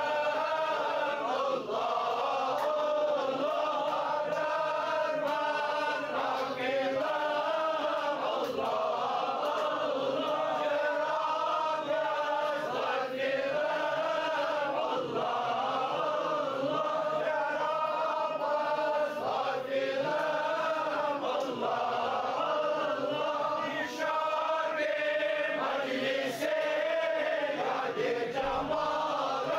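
A group of men chanting a Sufi devotional poem together, each line closing on the refrain "Allah Allah".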